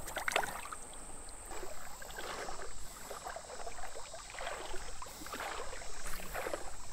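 Water splashing and swishing as legs wade through a shallow creek, in irregular pulses every second or two.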